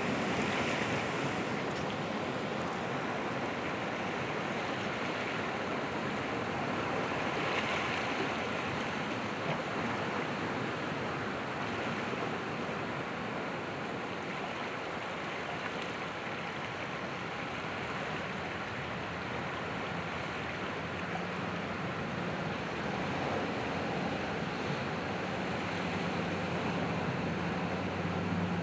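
Ocean surf breaking and washing ashore: a steady rushing that swells louder about a second in and again around eight seconds. A faint low hum joins in over the last several seconds.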